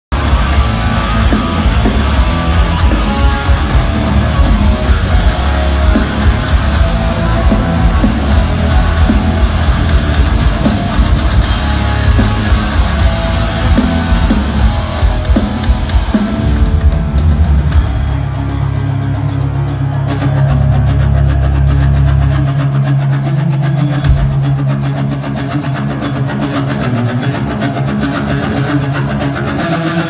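Rock band playing live: heavy electric guitars over a pounding drum kit. About eighteen seconds in the drums drop back and the guitars hold long, low ringing notes.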